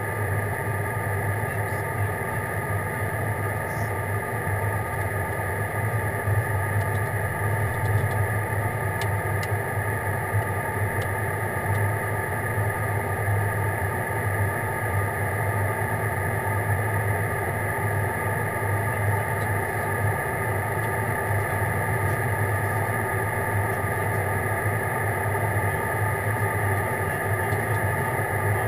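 Airliner's engines droning steadily in flight, heard from inside the cabin: a low hum with several constant higher tones over it.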